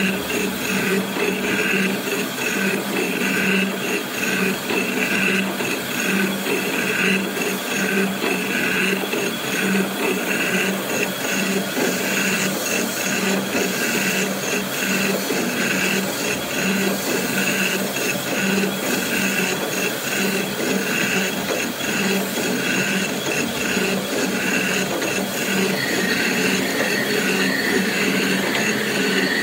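Jig boring machine running, its boring bar cutting the seal bore of a steam pressure valve: a steady mechanical whir of spindle and drive with the cut. A higher whine joins in near the end.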